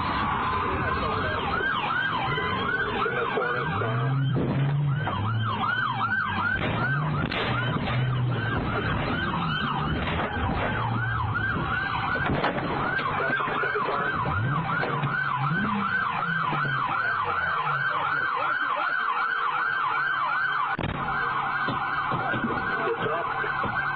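Police car siren in its fast yelp mode, sweeping up and down about three times a second without a break.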